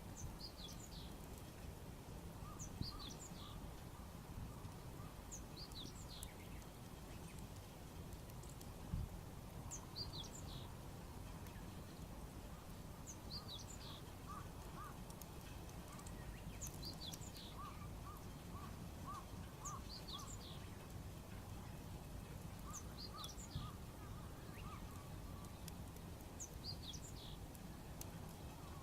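Small birds singing: a short high phrase repeated every three to four seconds, with runs of lower, evenly spaced chirping notes at times, over a steady low outdoor rumble. A couple of single knocks stand out, the sharpest about nine seconds in.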